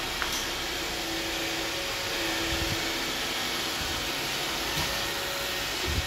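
iRobot Roomba 780 robot vacuum running in spot-clean mode, its vacuum motor and brushes giving a steady whir with a steady hum as it circles over one patch of tile floor.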